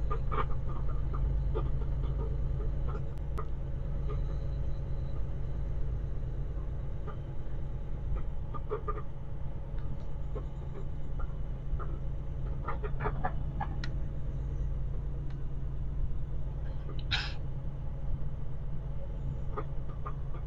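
Semi-truck engine running steadily at low road speed, heard from inside the cab as a low drone. Scattered short clicks and rattles sit over it, and a brief high squeak comes about three-quarters of the way through.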